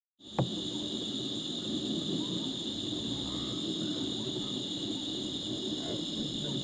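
Tropical forest ambience: a steady, high-pitched drone of insects over a low rumble, with faint scattered calls. It starts with a single sharp knock.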